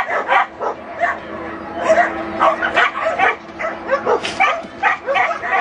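A dog barking over and over, several short barks a second.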